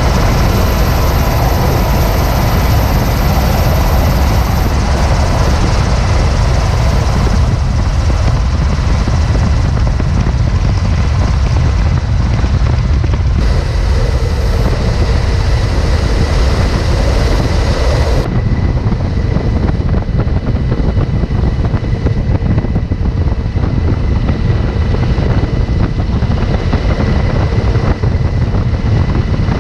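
Loud, steady roar of aircraft engines with heavy low rumble. The sound changes abruptly about 13 and 18 seconds in, as if several clips were cut together.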